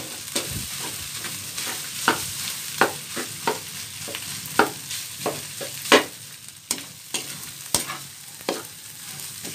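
Metal spatula scraping and knocking against a metal wok as fried rice is stirred, in irregular clicks about one or two a second, over a steady sizzle of frying.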